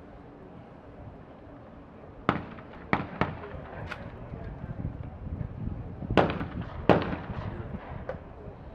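Shotgun shots on a skeet range: several sharp single reports in the first half, then a louder pair less than a second apart past the middle, and a fainter one near the end.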